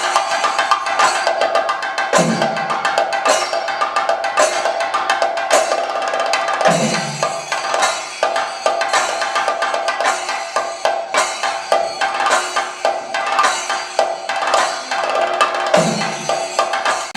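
Thayambaka ensemble of Kerala chenda drums playing a dense, rapid stream of stick strokes, with a few deeper, heavier strokes about 2, 7 and 16 seconds in. A steady ringing runs underneath, typical of the ilathalam hand cymbals that keep time in thayambaka.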